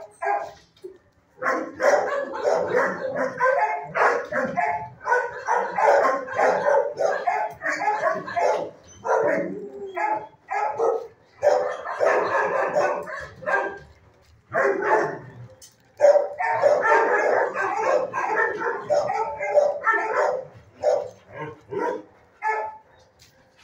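Several dogs barking in a shelter kennel block, a near-continuous din of overlapping barks that drops away briefly a few times.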